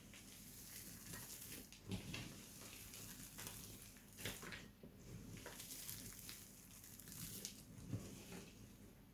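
Bar soap being cut and crumbled by hand: faint, irregular scrapes and crunches, with sharper clicks about two, four and eight seconds in.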